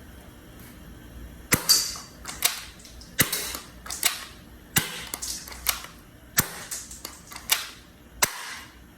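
SR4100 toy revolver shotgun's plastic action being worked: five sharp snaps about every second and a half, with lighter clicks between them.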